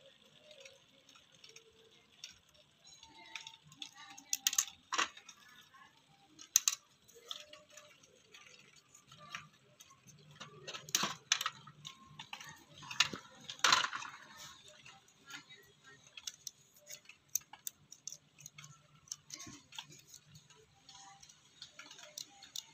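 Irregular clicks, taps and small plastic-and-metal knocks from a screwdriver working on a cassette radio's tape-deck mechanism and from its parts being lifted and handled. A few louder knocks stand out in the middle.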